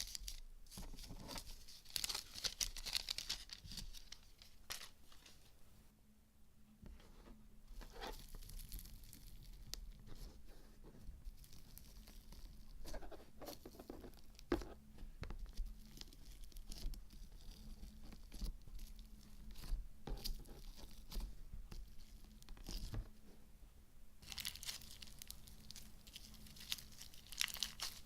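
Gold-leaf-covered slime being squished and stretched by hand, giving a string of crackling, crinkly crunches, with louder bursts of rustling near the start and again near the end.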